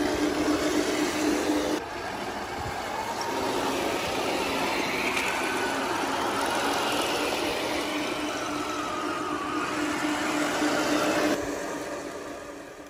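Radio-controlled model tanks driving: a steady mechanical running hum with a whine that rises and falls in pitch, changing abruptly about two seconds in and again near the end, then fading out.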